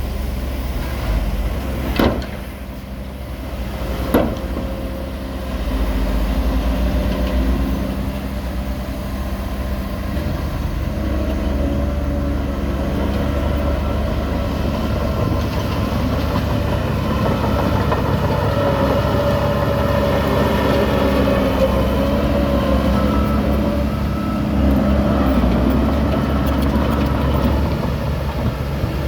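Heavy diesel machinery running steadily, with two sharp knocks a couple of seconds apart near the start, then the engine working louder, its pitch rising and falling.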